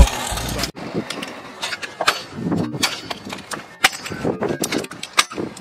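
Stunt scooters on a concrete skatepark: irregular sharp clacks and knocks of decks and wheels hitting the concrete, with rolling wheel noise between them. A hip hop track cuts off under a second in.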